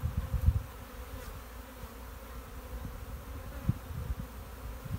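A honeybee swarm buzzing, a steady hum of many bees flying around the cluster on the tree. A few low thumps on the microphone come in the first half-second and again near the end.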